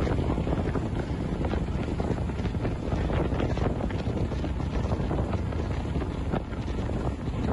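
Wind buffeting the microphone and water rushing past the hull of a center-console boat running at speed, over the steady drone of its Yamaha 150 outboard motor.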